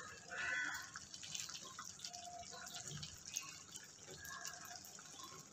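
Faint wet sounds from a pan of thick masala as a piece of washed raw chicken is laid into it, with a short louder wet squelch about half a second in, then soft scattered drips and plops.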